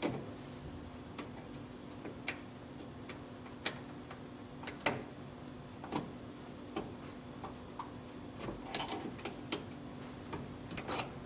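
Irregular small metallic clicks and taps, about one a second with a quick cluster near the end, from a worn key being wiggled to work the key cylinder out of a 1969 Chevrolet C10's ignition lock housing. A faint steady hum underneath.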